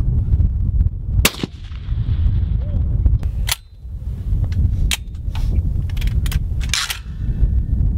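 Gunshots: a loud shot about a second in with a ringing tail, another about two seconds later, then several shorter, lighter sharp cracks near the end. Steady wind rumble on the microphone underneath.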